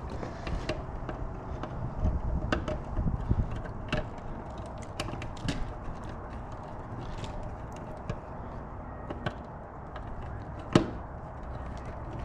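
Scattered light clicks and taps of hands working wires into a sprinkler controller's terminal block, with one sharper click about eleven seconds in.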